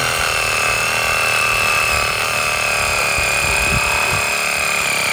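Hart cordless reciprocating saw running steadily with a general-purpose wood-cutting blade, cutting through wood, its motor giving a steady high whine.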